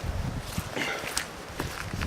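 Footsteps of a person walking, with the low rumble of wind on the microphone.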